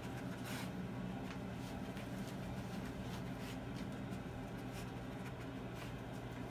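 Faint, scattered clicks and scuffs of a bull terrier's feet on a vinyl tile floor as it moves about searching for scent, over a steady low hum.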